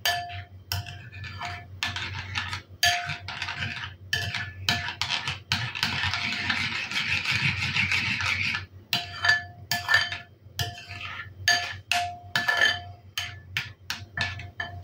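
A metal spoon stirring a thick cream mixture in a ceramic bowl, clinking against the bowl's side again and again with short ringing clinks, and scraping steadily for a couple of seconds in the middle.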